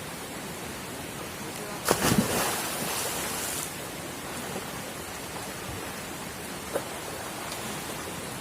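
Steady rush of a waterfall, broken about two seconds in by a loud splash into the pool that hisses on for over a second, as a person jumps in.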